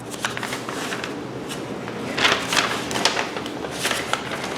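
Packaging being handled: paper and plastic rustling with scattered light clicks and knocks, the loudest rustles about two to three seconds in.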